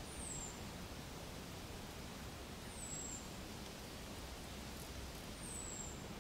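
An animal's high, thin chirp sliding downward, three times about two and a half seconds apart, over a steady low background hiss.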